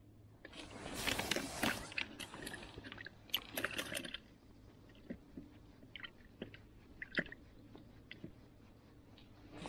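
Crunchy rustling and handling noise from about half a second to four seconds in, as a just-caught perch is handled by bare hands over the ice hole, then scattered light clicks and taps.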